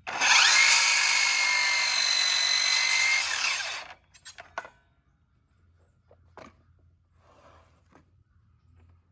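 A power drill runs for about four seconds, whining up to speed, holding steady, then winding down and stopping. A few faint knocks and clicks follow.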